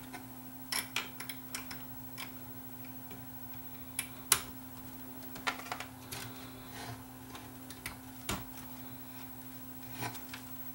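Small irregular clicks and taps of plastic wiring connectors being pushed onto their sockets in a cassette deck's chassis, the sharpest about four seconds in, over a steady low hum.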